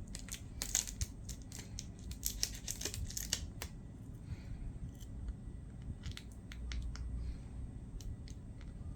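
Sticky tape dabbed onto a screen and peeled off to lift dust, a close run of small sticky crackles and ticks for the first three and a half seconds, then scattered single ticks.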